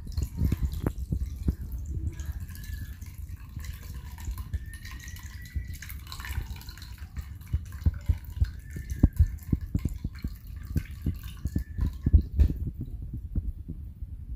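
Milk pouring in a thin stream through a stainless-steel mesh strainer into a glass bowl of beaten eggs, splashing and dripping, with many soft low knocks throughout.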